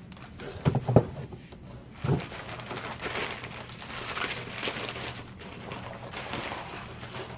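Cardboard shipping box and its packing being opened by hand. A few sharp knocks come in the first two seconds, then steady rustling of the packaging.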